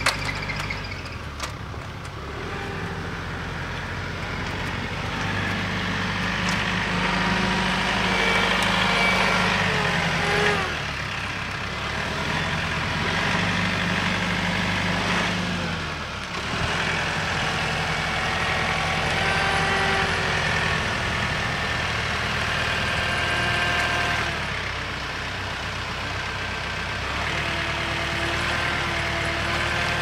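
A vehicle engine running, its speed and pitch rising and falling a few times.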